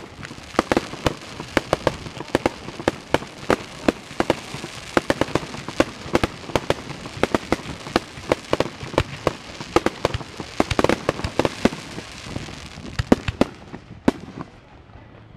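Fireworks display: aerial shells bursting in quick, uneven succession over a steady hiss, sometimes several bangs a second. The bangs thin out in the last second or so.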